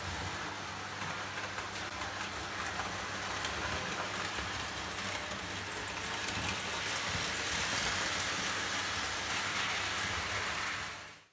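Prewar Lionel O gauge toy train running on three-rail tinplate track, a steady rumble and clatter of wheels and motor that grows a little louder past the middle and fades out near the end.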